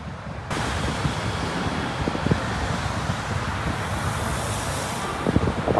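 Road traffic: a steady rush of cars passing, which gets louder about half a second in, with low thumps of wind buffeting the microphone.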